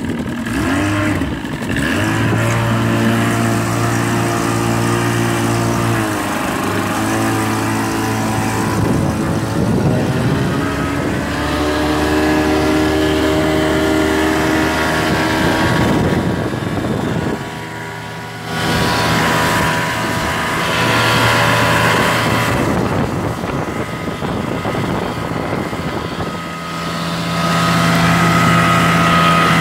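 Outboard motor running with the boat under way, its engine speed rising and falling several times, dropping briefly about two-thirds of the way through before picking up again. A rushing wash of water runs under the engine.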